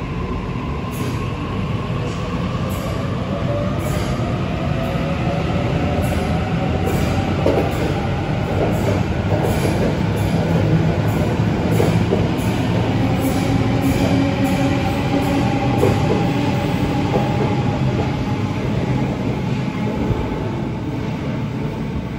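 Sydney Trains Waratah Series 2 (B-set) electric train pulling out of an underground platform and accelerating, its traction motors whining in a tone that climbs slowly in pitch over a steady rumble. A run of clicks from the wheels comes about a third of the way in.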